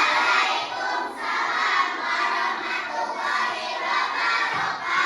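A group of children chanting the reply to an Islamic greeting in unison, a loud, drawn-out chorus of many voices.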